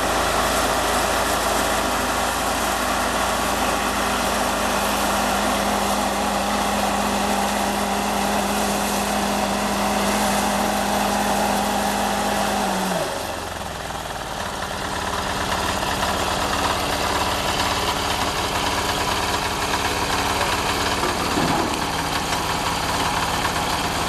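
Mini combine harvester's engine running with mechanical clatter. About halfway through the engine note falls as it slows, then it runs on steadily at the lower speed.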